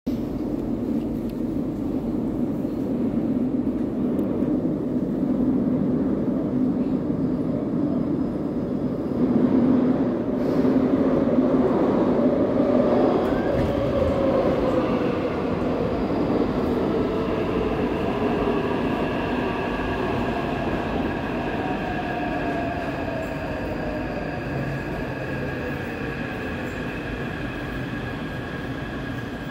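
Taipei Metro C371 train pulling into a station and braking to a stop. It passes loudest about a third of the way in, then its IGBT-VVVF traction inverter whines with a falling pitch as the train slows, leaving steadier high tones near the end.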